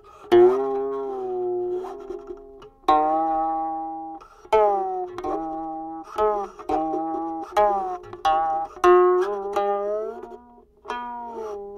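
Guqin (seven-string Chinese zither) played solo: about a dozen plucked notes, many bending and sliding in pitch after the pluck as the left hand glides along the string.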